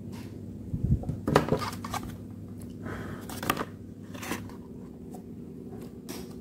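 Printed card diorama pieces being handled and pressed onto a base board: a soft thump about a second in, then crackling and rustling of the stiff card as it is folded and slid into place, over a steady low hum.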